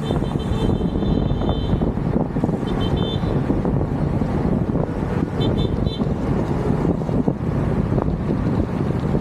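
Steady road and traffic noise on a ride, with most of the sound low down. A thin, high tone comes three times: for about two seconds at the start, then briefly about three seconds in and again about five and a half seconds in.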